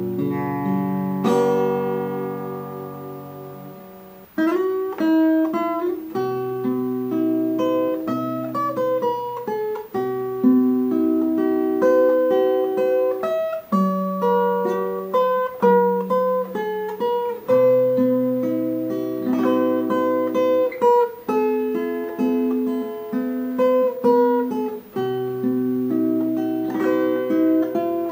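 Background music of fingerpicked acoustic guitar: a chord rings out and fades over the first few seconds, then a steady run of picked notes and chords follows.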